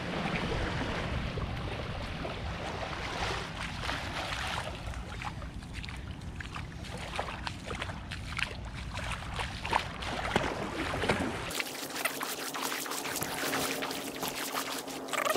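Bare feet wading and splashing through shallow seawater, a stream of short splashes over a low rumble that cuts off abruptly about eleven seconds in.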